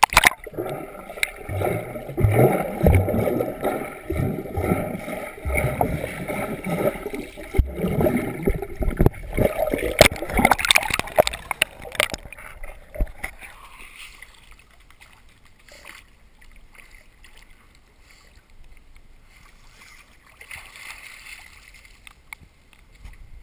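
Water sloshing and splashing in a swimming pool as dogs swim and move about, busy for about the first twelve seconds and then dying down to a quiet stretch.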